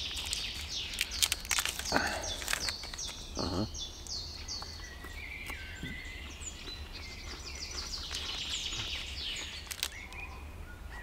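Wild songbirds singing in woodland: series of short, repeated high chirping notes and trills, one after another. A few brief crackles near the start.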